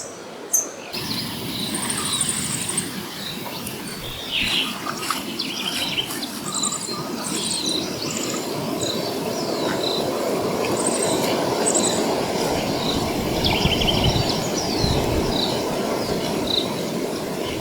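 Several birds chirping and whistling in short, repeated calls over a steady rushing noise.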